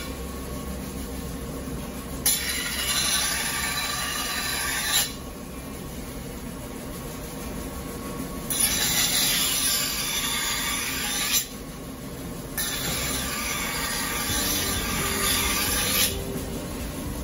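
Steel deba kitchen knife ground on a large rotating grinding wheel: three passes of about three seconds each, each a harsh grinding hiss, with the wheel running more quietly between passes. The high spots of the blade's uneven flat are being roughly ground down.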